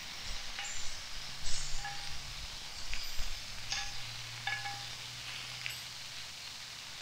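Metal tongs clicking and clinking against a cast-iron skillet as food is turned and moved, each tap leaving a short metallic ring, over a steady hiss of frying.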